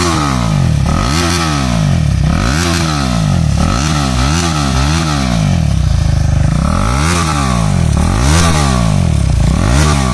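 KTM Duke 390's single-cylinder engine running with its muffler removed, exhausting straight out of the catalytic-converter header pipe, very loud. It is revved in quick throttle blips, about eight in all, dropping back to a steady idle for a moment about six seconds in.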